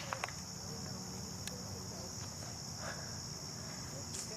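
Steady high-pitched insect chorus, unbroken throughout, with a few faint clicks near the start.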